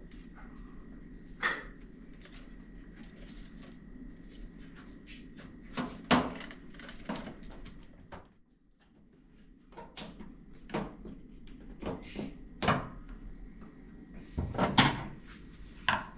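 Irregular knocks and clunks, about a dozen spread unevenly, the loudest a quick cluster near the end, over a steady low hum.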